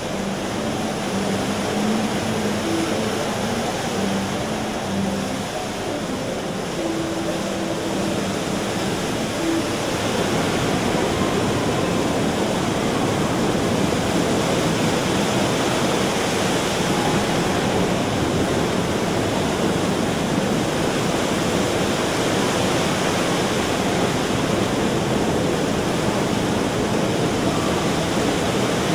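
The Rain Oculus waterfall: a column of water plunging from the inverted glass dome into a round basin in the pond, a steady rushing splash that grows a little louder about ten seconds in. Faint notes of music sound under it over the first ten seconds.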